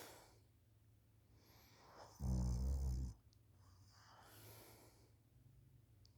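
A sleeping person snoring: one loud, low snore about two seconds in, lasting about a second, followed by a softer breathy out-breath.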